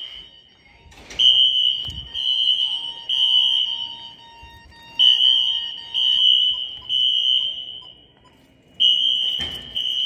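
Siemens ZH-MC-R fire alarm horn strobes sounding the evacuation signal: a loud, high horn tone in groups of three blasts with a pause of about a second between groups, the temporal-three pattern.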